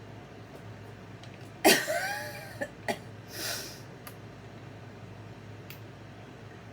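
A woman coughs once, sharp and loud, then gives a softer, breathy second cough about two seconds later. The cough comes while she is cooking with a jalapeño-heavy filling, whose fumes she says are making her cough a little.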